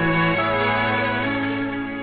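Music from an Adventist World Radio shortwave broadcast relayed by Radio Andorra: slow held chords, the notes shifting twice, heard with the narrow, treble-less sound of a shortwave recording.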